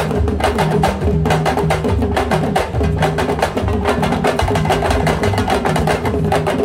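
Music with a fast, steady percussion beat over a repeating bass line.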